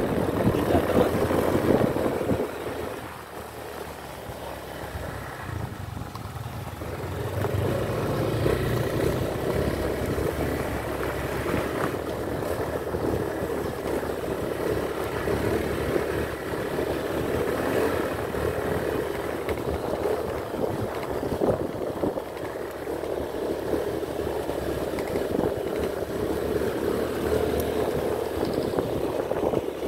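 Motorcycle engine running while under way over a rough dirt lane, mixed with road and wind rumble. It eases off about three seconds in and picks up again a few seconds later.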